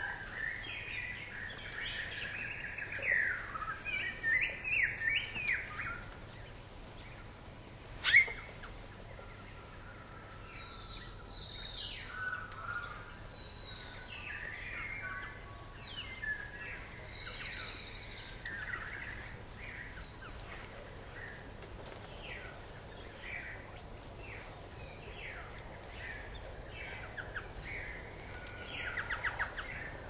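Small songbirds chirping and calling over and over, busiest in the first six seconds. A single sharp click about eight seconds in is the loudest sound.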